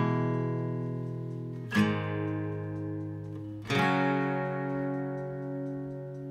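Background music: acoustic guitar chords strummed three times, about two seconds apart, each left to ring out and slowly fade.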